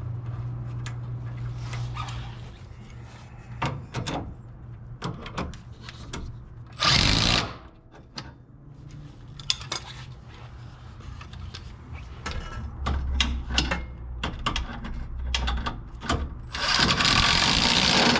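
Small metal clicks and taps of end-link hardware being fitted, with a handheld power tool briefly running a nut onto the sway bar end link about seven seconds in and again for longer near the end.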